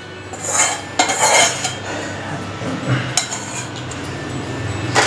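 A spatula scraping a soft sukhdi mixture out of a steel kadai into a steel plate, with scrapes and clinks of the pan's rim against the plate, and one sharp knock near the end.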